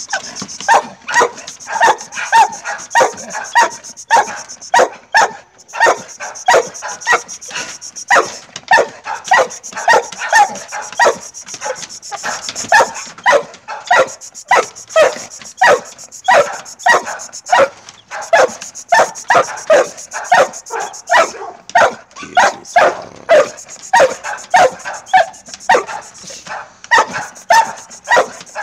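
Pit bull-type dog barking over and over in a steady run, about two barks a second.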